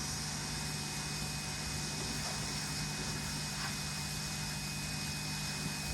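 Pressure washer motor running steadily, a constant hum with a few steady tones over a hiss.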